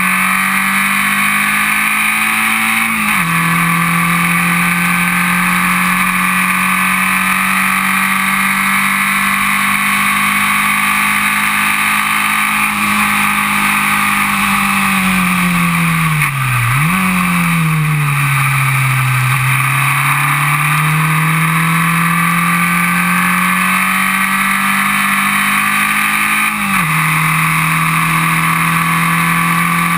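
Formula Vee race car's Volkswagen-based engine under hard throttle, heard from the cockpit with wind rush. Revs climb to an upshift about three seconds in, fall away with a quick blip around the middle, then build again to another upshift near the end.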